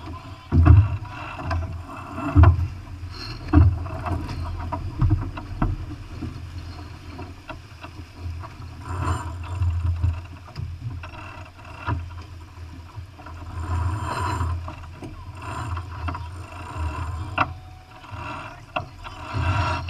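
Wind buffeting the microphone aboard a sailboat under way in choppy water, with water rushing and splashing along the hull. A few sharp knocks stand out, the loudest about a second in.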